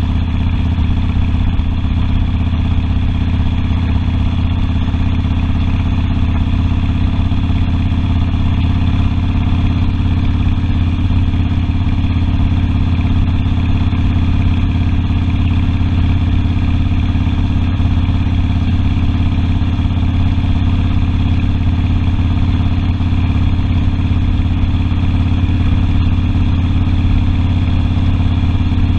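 Harley-Davidson Sportster's V-twin engine running at a steady, unchanging pace, with no revving or shifting heard.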